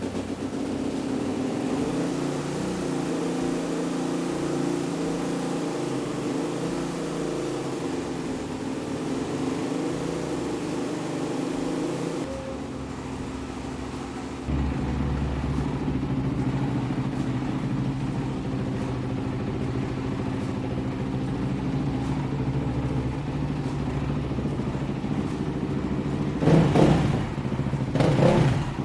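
Kawasaki KX450F dirt bike's single-cylinder four-stroke engine running at idle, now starting and running after its carburettor jet was cleaned and a new spark plug fitted. The idle changes in tone about halfway through, and there are two short throttle blips near the end.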